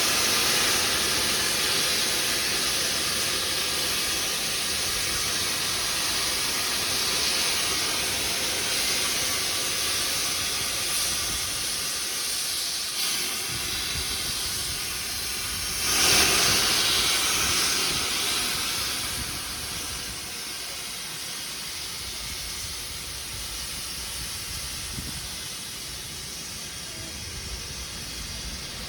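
LMS Black 5 steam locomotive hissing as steam escapes. A louder gust of hiss comes about sixteen seconds in, then the hiss dies down to a lower, steady level.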